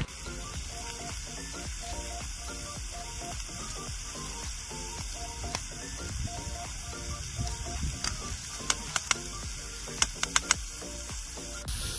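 Minced meat sizzling in a frying pan over a wood campfire, a steady hiss, under background music. A handful of sharp clicks come near the end.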